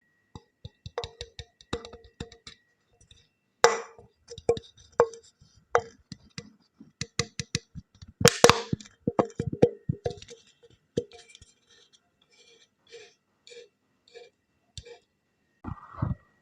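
Irregular sharp taps and clicks with a short hollow ring, some in quick clusters, the loudest about four and eight seconds in.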